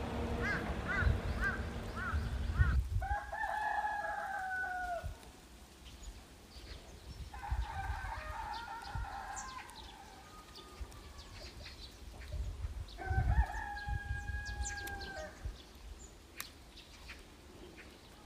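A rooster crowing three times, each crow lasting about two seconds with a slow fall in pitch at the end. The crows are preceded by a quick run of short chirps, about two a second.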